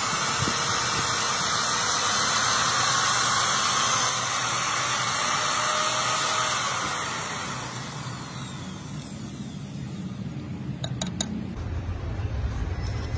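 Magnetic-base drill with a hollow annular cutter boring through the thick steel of an excavator track frame, a loud steady grinding hiss that dies away about seven or eight seconds in. A few sharp clicks follow, then a low rumble starts near the end.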